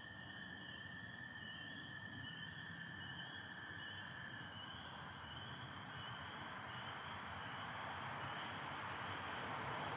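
A chorus of spring peepers peeping continuously at a high pitch, with an American toad's long, steady trill beneath it that stops about halfway through. Over the second half a broad rush of noise swells louder toward the end.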